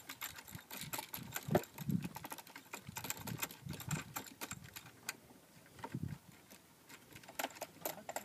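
Small irregular clicks and taps of hardware being worked by hand as a fastener is turned in to fix a side panel of a Dobsonian telescope's rocker box to its base board, with a few soft low thumps.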